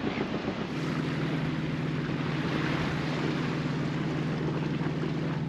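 Sailboat's inboard engine running steadily under way: a low, even hum that sets in about a second in, over a hiss of wind and water.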